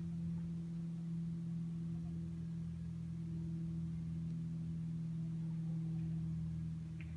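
Steady low hum with a rumble beneath it, unchanging throughout, from a machine or engine running near the microphone.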